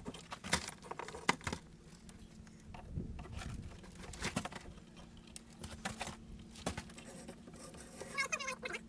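Scattered knocks, clicks and clatter of timber and tools as a wooden arch former is dismantled from under a stone arch, with a short warbling squeak near the end.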